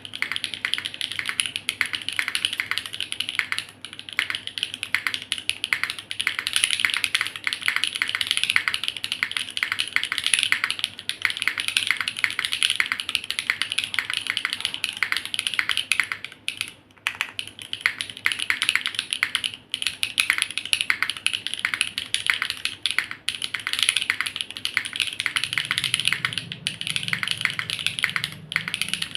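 Continuous fast typing on a Neo65 Cu mechanical keyboard (gasket-mounted, aluminium plate, copper bottom) with HMX Yogurt S switches and GMK keycaps: a rapid, steady clatter of keystrokes, broken by a few brief pauses.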